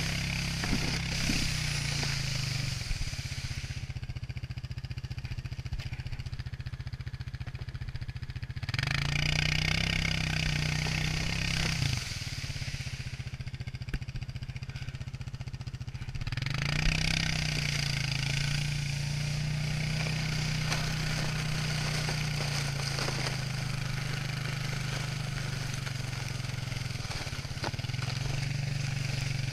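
ATV engine running while towing a loaded sled through snow. It eases off about three seconds in, speeds up again around nine seconds, eases off near twelve, then picks up near seventeen and keeps going. A hiss of the sled sliding over the snow swells and fades with the speed.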